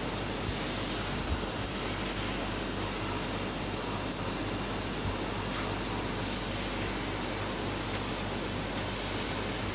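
Steady, high hiss of a CNC fiber laser cutting machine at work on steel plate.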